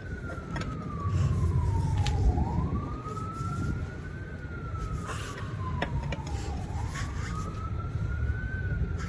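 An emergency-vehicle siren on a slow wail, its pitch rising and falling about every four seconds, over a low rumble with a few short clicks.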